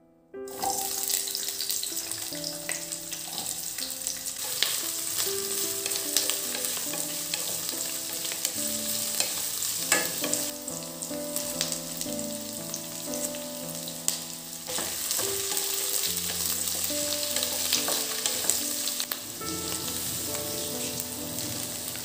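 Onion, green capsicum and dried red chilli frying in hot oil in a kadai: a steady sizzle that starts suddenly about half a second in, with scattered clicks and knocks. Soft piano background music plays underneath.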